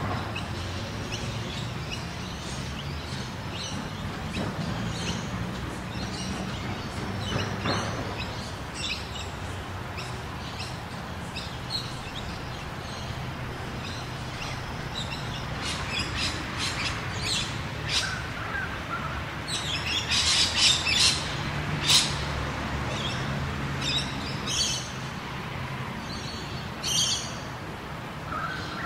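Rural ambience of several small birds chirping and calling, busiest about two-thirds of the way through, over a steady low background rumble.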